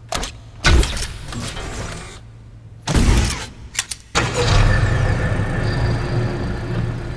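Staged mechanical sound effects: sharp clicks and knocks from robotic arms in the first few seconds. Then, about four seconds in, a car engine starts abruptly and runs steadily with a low hum.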